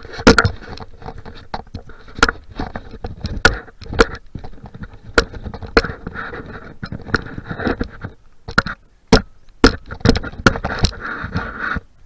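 Handling noise on a handheld camera: fingers rubbing and knocking against the camera body and microphone, an irregular run of sharp clicks and scrapes that stops suddenly near the end.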